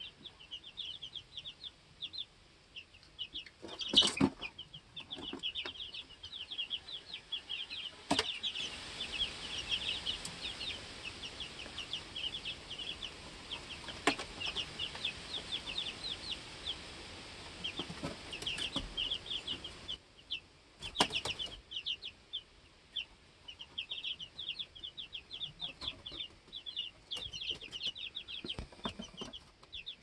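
Two-week-old chicks peeping constantly in quick, high chirps. A few brief, louder flutters of wings break in, the loudest about four and twenty-one seconds in, as the chicks hop and try to fly.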